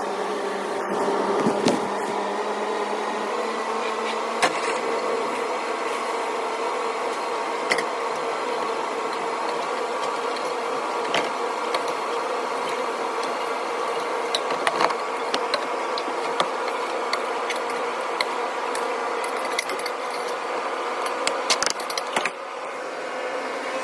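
Steady mechanical hum of a commercial kitchen's extraction, with a few light clinks of a metal spoon against a steel pot.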